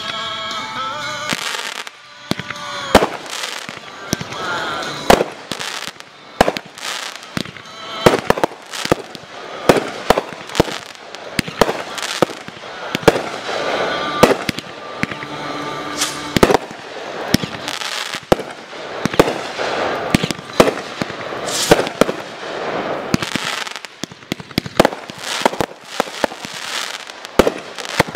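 Aerial fireworks going off in rapid succession: sharp bangs from the shell bursts, irregular and often several a second, over a continuous din.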